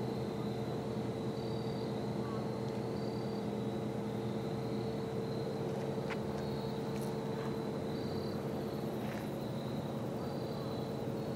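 Insects, likely crickets, trilling in a thin high band that swells in short stretches every second or two, over a steady low hum.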